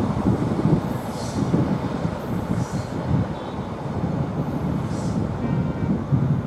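Passenger train coaches rolling through a curve, a steady rumble on the rails, with three short high hisses about a second, two and a half seconds and five seconds in.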